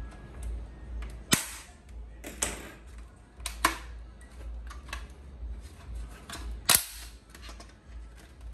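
Plastic snap-fit clips of a Huawei B612 router's casing popping loose with several sharp clicks as the shell is pried and pulled apart by hand, with scraping of plastic between the clicks.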